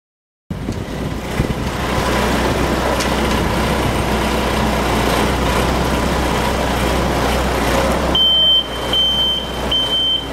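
Manitou telehandler's diesel engine running steadily close by. About eight seconds in, a vehicle reversing alarm starts beeping, about once every three-quarters of a second.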